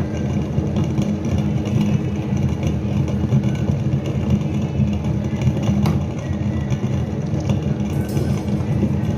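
Table-top wet grinder running steadily, its stone rollers turning in the steel drum and grinding soaked horse gram and rice into dosa batter: a steady low motor hum.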